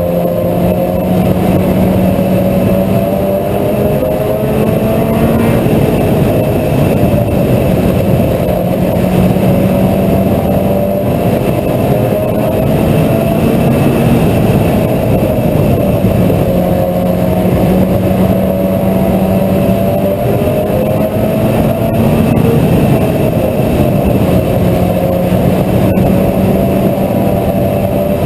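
Mini stock race car engine running hard under race conditions. Its pitch rises and falls in a repeating cycle every several seconds as the car accelerates and lifts.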